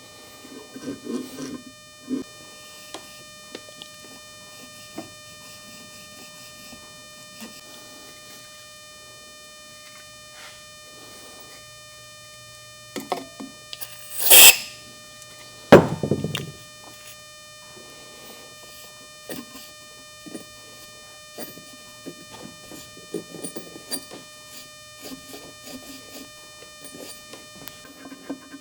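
Engine parts being handled on a workbench during a teardown: scattered light clicks and knocks, then about halfway through one loud sharp metal clank followed a second later by a heavier, duller knock.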